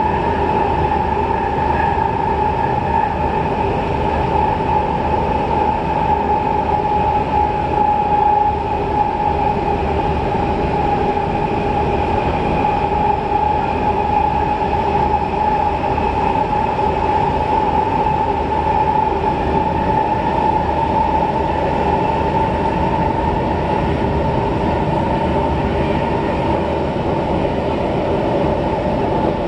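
Cabin sound of a C651 MRT train running at steady speed on elevated track: a continuous rumble of wheels on rail under a steady whine that holds one pitch.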